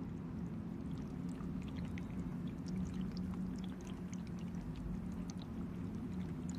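A steady low hum with faint, scattered high ticks over it.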